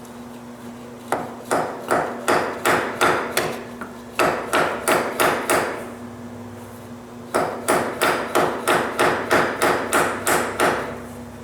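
Small hammer striking steel vice grips clamped on a rusted, seized bolt in a hydraulic valve block, in three quick runs of about three metallic blows a second: shock loading to break the corroded bolt free. A steady hum runs underneath.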